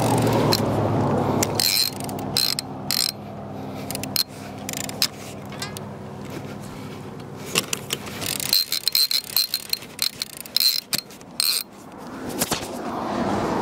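Baitcasting fishing reel being cranked against a hooked fish, its gears giving a steady whir that is loudest for the first couple of seconds and fades by about halfway. After that come a run of sharp clicks and knocks.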